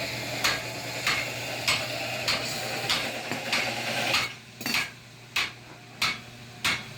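Blacksmith's hammer striking metal on an anvil at a steady pace, about one ringing blow every 0.6 s. A background hiss under the blows drops away about four seconds in.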